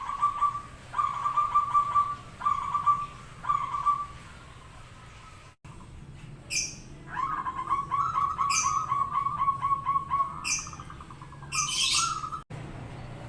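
Zebra dove (perkutut) singing: four short cooing phrases, then after a break a long rapid rolling trill of cooing notes. Sharp high chirps from a second, smaller bird come in every couple of seconds over the trill.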